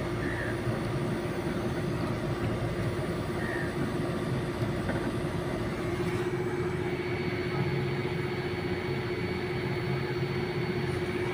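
Blue Star inverter split AC outdoor unit running steadily under gas charging: an even hum of compressor and condenser fan with a steady mid-pitched tone. About halfway through a higher whine sets in.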